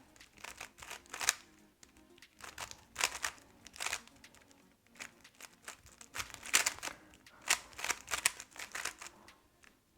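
3x3 speed cube being turned fast during a solve: quick, irregular plastic clicks and clacks of the layers snapping round, with short pauses between bursts of turns. Faint background music runs underneath.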